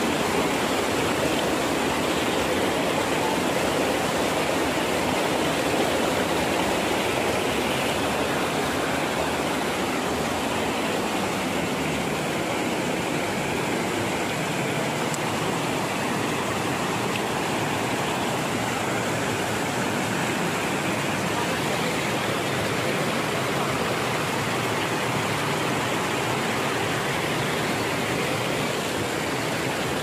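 Steady rush of a shallow rocky stream spilling over small cascades, with the deep part of the rumble easing a little partway through.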